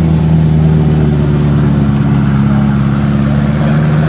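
Ferrari F40's twin-turbo V8 running at low revs as the car pulls away slowly, its note dipping slightly midway and rising again.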